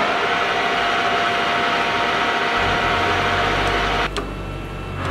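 Birmingham 16 x 40 gap bed engine lathe running with its chuck spinning, a steady whine from the headstock gearing. The whine cuts off with a click about four seconds in as the spindle is stopped. A low hum comes in shortly before that and carries on.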